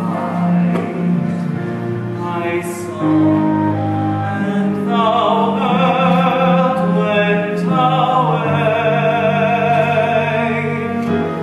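Music from a live stage musical: a slow, sustained orchestral passage with a singing voice.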